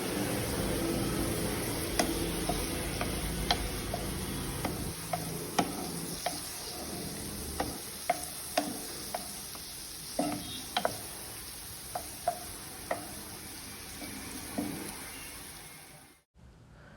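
Onions and curry leaves frying in ghee in a kadai, a steady sizzle, with a spoon stirring and clinking against the pan every half second or so from about two seconds in. The sound cuts off just before the end.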